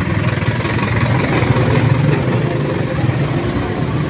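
Road traffic at low speed close by: a box truck's engine running as it passes alongside, with a steady low rumble.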